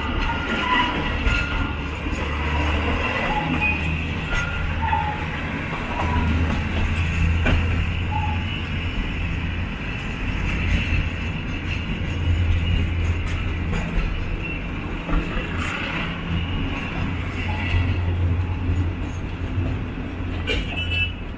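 The Darjeeling Himalayan Railway narrow-gauge toy train running, heard from on board: a steady rumble and throb that swells and eases every second or two, with the odd click from the wheels on the rails.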